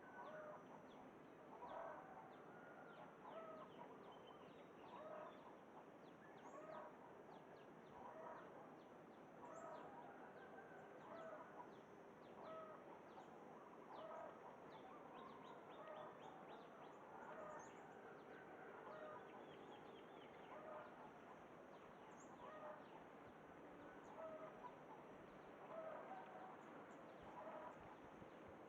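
Zebra doves (merbok) cooing, faint: short staccato call phrases repeated about once a second.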